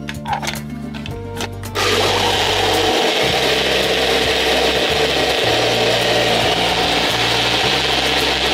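Personal bullet-style blender motor starts suddenly about two seconds in and runs steadily, blending a cup of liquid with solid plant scraps into a slurry. Before it starts there are a few short clicks, and background music plays underneath throughout.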